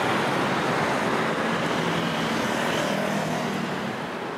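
City street traffic: cars and vans driving past in a steady wash of engine and tyre noise, easing slightly toward the end.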